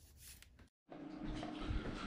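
Faint room tone that cuts out to dead silence briefly, then a steady background hiss with a faint low hum and a few light knocks.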